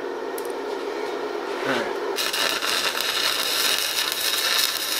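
Stick-welding arc from a small 120-volt Forney Easy Weld 100ST welder, struck about two seconds in and then burning with a steady crackling sizzle.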